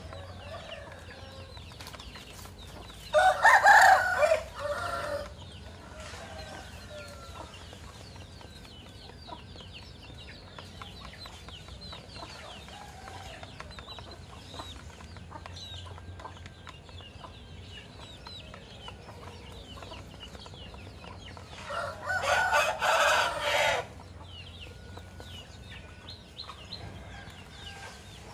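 Rooster crowing twice, about twenty seconds apart, each crow lasting about two seconds. Fainter short chicken calls go on between the crows.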